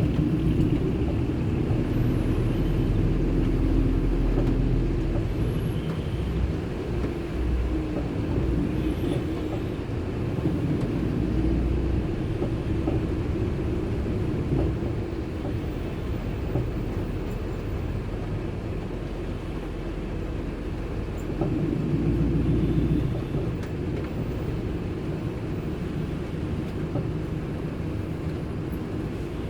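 Low, steady rumble of a car driving, heard from inside the cabin. It swells louder at the start and again about three-quarters of the way through.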